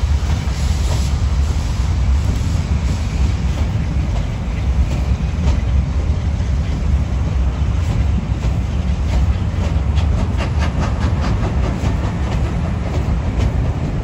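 A train passing on the rails: a steady heavy rumble, with a quick run of wheel clicks over the rail joints about nine seconds in.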